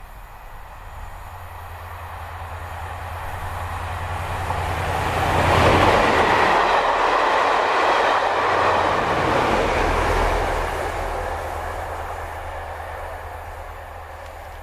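A locomotive-hauled train passing by: a low hum and rail noise build as it approaches, peak about six seconds in, then fade as it goes away.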